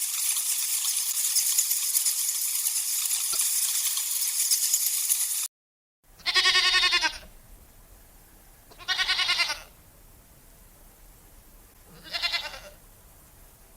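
A steady, high rattling hiss that cuts off suddenly about five and a half seconds in. After a short silence an animal bleats three times, each call lasting about half a second to a second.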